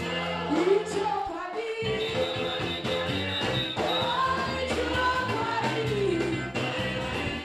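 A woman singing a gospel song into a microphone over live instrumental backing, with held and gliding notes above a steady bass and a beat.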